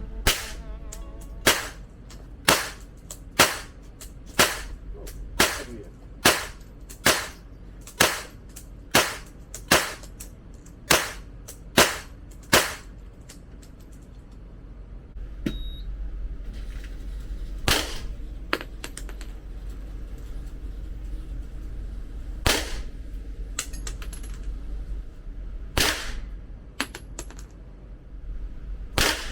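Gunshots at a shooting range: a steady string of about fourteen shots, roughly one a second, then single shots several seconds apart.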